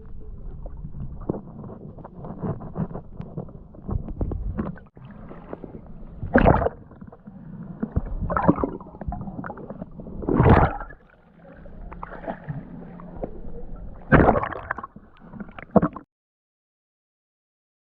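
Water gurgling and bubbling around a diver, with a scatter of small knocks and four louder bubbling gushes a couple of seconds apart. The sound cuts out completely about two seconds before the end.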